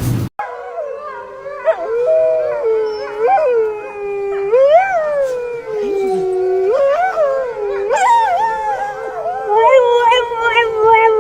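A dog howling on and on without a break, its pitch wavering and sliding up and down, with quick little warbles near the end.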